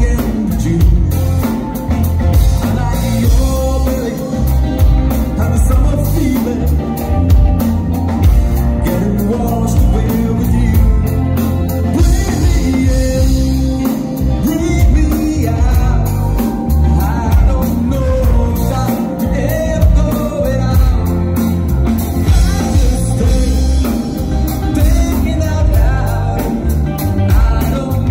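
Live pop covers band playing with electric guitar, electric bass, drum kit and keyboard under a male lead vocal, with a steady drum beat.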